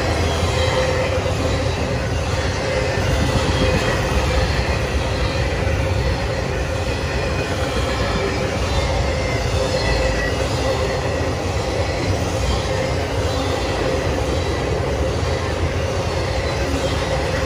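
Norfolk Southern intermodal freight cars rolling steadily past, carrying containers and trailers: a continuous rumble of steel wheels on rail. Faint steady squealing tones from the wheels ride over it.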